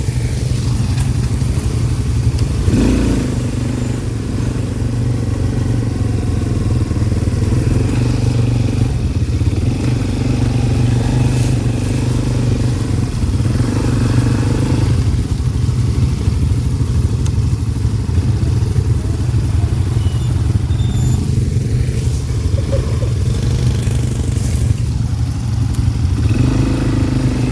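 ATV engine running steadily at low revs as the quad is ridden, with a few clattering knocks along the way.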